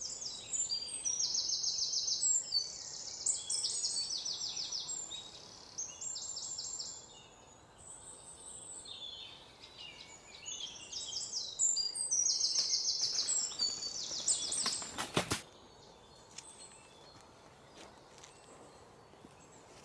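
Small birds calling in quick, high-pitched trills and chatters, in two busy spells. A brief cluster of sharp clicks comes about fifteen seconds in.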